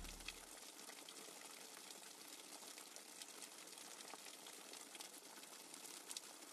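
Faint rain ambience: a soft, even hiss of rainfall with scattered tiny droplet ticks, while the music's last low note fades out in the first second.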